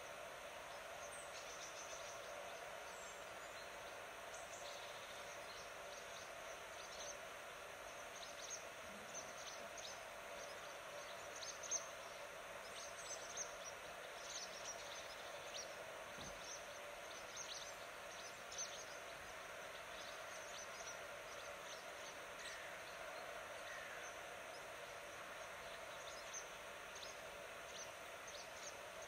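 Outdoor nature ambience: small birds chirping in short, high calls scattered throughout, over a steady faint background hiss.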